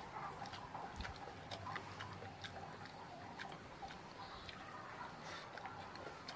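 Eating sounds up close: chewing and lip-smacking with many irregular small clicks as several people eat by hand from plates.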